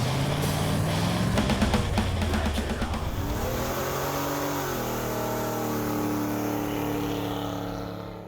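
A car engine revving, rising in pitch and then holding steady, under rock music, fading out near the end.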